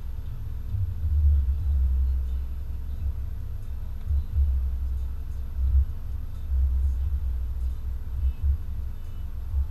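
Low, uneven rumble inside a car's cabin as it crawls in slow traffic, with a faint steady hum above it.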